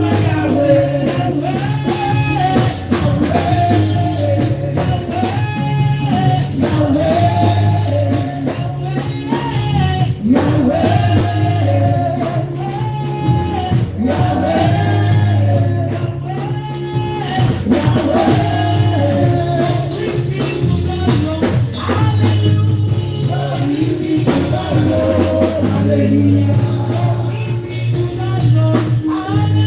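Upbeat makosa-style gospel praise music with a steady bass line, busy tambourine-like percussion keeping the beat, and a repeating melody over it.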